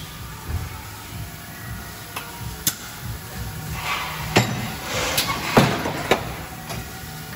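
Industrial plastics-processing machine running: a steady low hum with sharp metallic clanks and clicks at irregular intervals, most of them past the middle, and a couple of short hisses.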